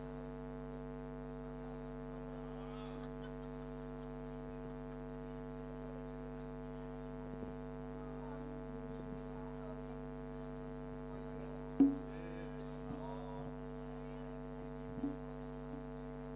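Steady electrical mains hum from a public-address sound system, with one brief louder sound about twelve seconds in and a fainter one about three seconds later.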